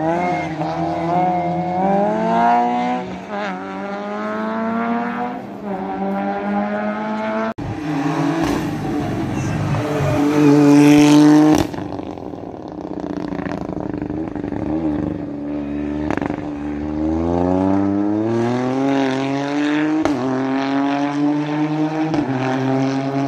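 Racing car engine under hard acceleration, its pitch climbing and dropping back at each upshift, several times over. About ten to eleven seconds in there is a louder, rougher stretch.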